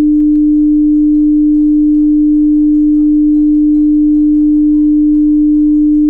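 Loudspeaker playing a loud, steady pure test tone that holds one pitch without change. The tone is set above the bottles' resonant frequency, so the hanging plastic bottles do not move at all.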